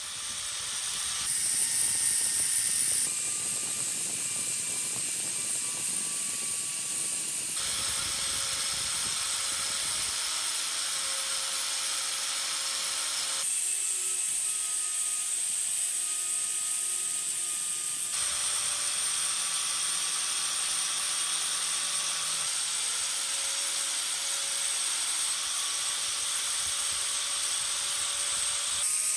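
Power-driven rotary wire cup brush spinning against rusty steel scissors, scouring the rust off. A steady high hiss runs over the steady whine of the tool's motor.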